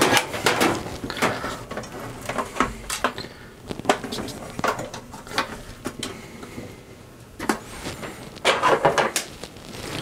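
Hands handling the wire harness and plastic connectors on a dryer's control console: scattered clicks and rustles, busier near the end.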